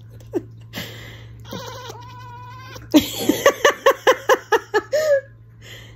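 Seal-point cat chattering: a few scattered chirps, then about halfway through a fast run of about ten short clicking "ek" calls, roughly five a second, ending in one short drawn-out chirp.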